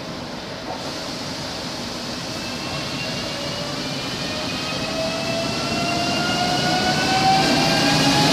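Newag Impuls ED78 electric multiple unit pulling away: the whine of its traction drive rises steadily in pitch as it accelerates, several tones climbing together, and grows louder.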